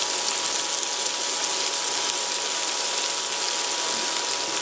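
Sliced onions, green onions and cherry tomatoes sizzling in hot oil in a wok, a steady even hiss.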